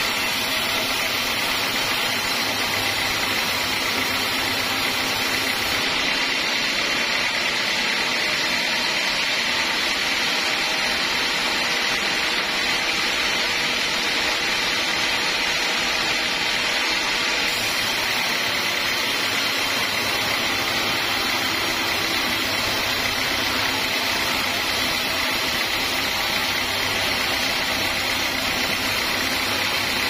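Vertical band saw mill running steadily, sawing lengthwise through a hard acacia log with an even, unbroken noise.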